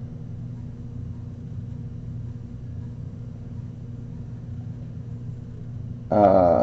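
Steady low hum of room noise, unchanging, with a man starting to speak near the end.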